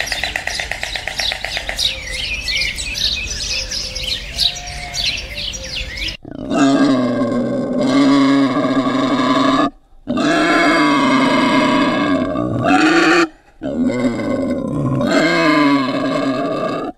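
Birds chirping for about six seconds, then a sudden change to an animal calling loudly: three long calls of about three seconds each, with short gaps between them.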